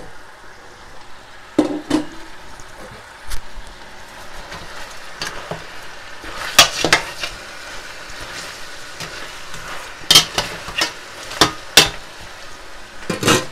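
Metal spoon stirring goat meat and sliced onions in a stainless steel pot, knocking and scraping against the pot in sharp, uneven strikes, over a steady sizzle of the meat cooking.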